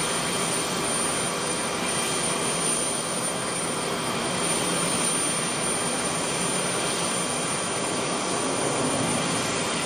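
Tupolev Tu-154 airliner's three rear-mounted jet engines heard from the ground as the plane flies past: a steady rushing jet noise with faint whining tones in it.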